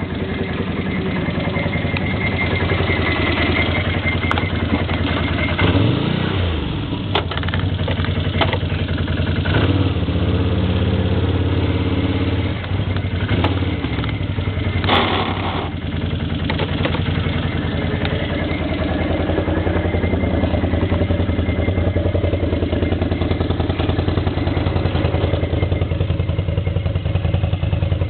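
ATV engine running steadily under way, its pitch rising and falling briefly a few times, with some clattering.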